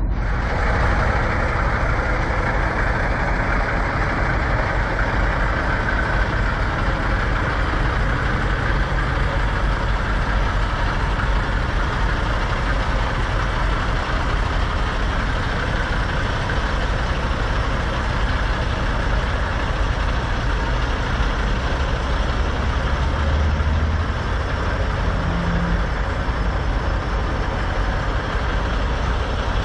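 Heavy diesel semi-truck engines idling steadily: a constant low rumble with an even hiss over it.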